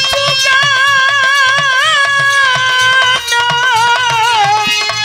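Bhojpuri birha folk singing: a male voice holds a long wavering note, then steps down and falls in pitch about halfway through, over steady hand-drum strokes and harmonium.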